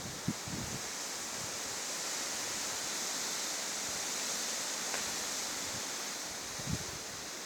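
Blizzard wind blowing with a steady hiss, with a few brief low buffets of wind on the microphone near the start and about two-thirds of the way through.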